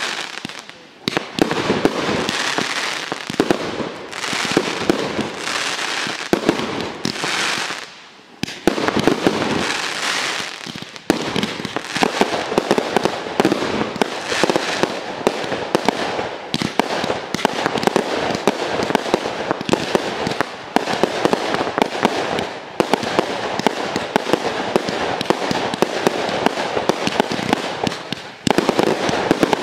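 Fireworks display: a dense, continuous barrage of rapid pops and bangs from aerial shells and crackling stars, with a few short lulls, the deepest about eight seconds in.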